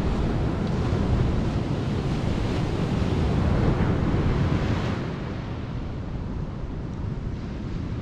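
Atlantic Ocean surf breaking and washing on a sandy beach, with wind rumbling on the microphone. The surf is louder for the first five seconds or so, then eases a little.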